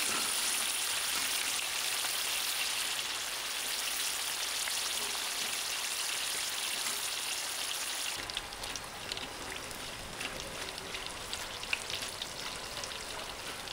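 Scorpions deep-frying in a wok of hot oil: a steady sizzle of bubbling oil. About eight seconds in it turns softer, with scattered crackles and pops as a wire skimmer stirs them.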